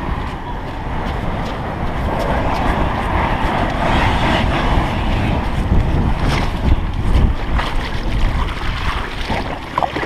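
Plastic hull of a Feelfree sit-on-top kayak scraping steadily over the sand as it is dragged to the water's edge, louder through the middle, with a few knocks; wind on the microphone adds a low buffeting.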